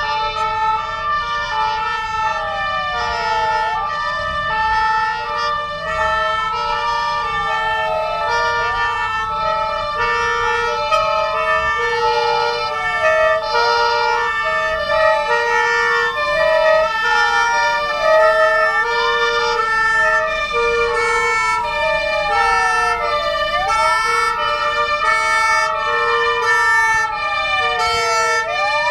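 Several fire engine sirens sounding together. One sweeps slowly down in pitch and jumps sharply back up about every five seconds, while others switch back and forth between steady tones.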